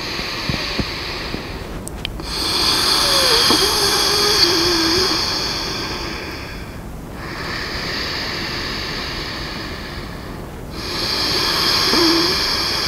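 A woman's slow, deep, audible breathing: three long drawn breaths, each lasting several seconds, as cued deep inhales and exhales.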